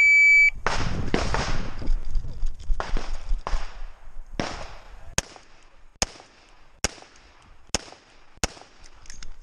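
A shot timer's start beep sounds for about half a second, then a Smith & Wesson 686 revolver fires a string of shots, with a steady pace of about one shot a second in the second half.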